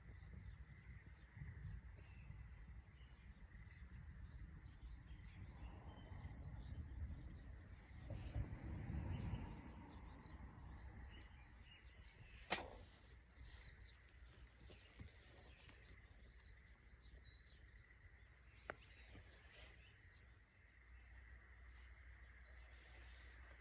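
Faint outdoor ambience with small birds chirping on and off, and two sharp clicks, one about halfway through and one about three quarters of the way in.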